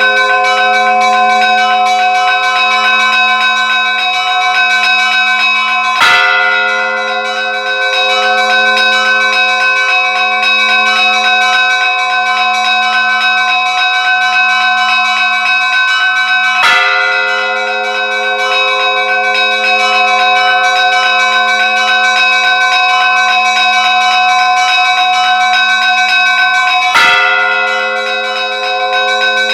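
A large church bell struck three times at a slow, even pace, about ten seconds apart. Each stroke rings on through the gap until the next, with a low hum that wavers steadily.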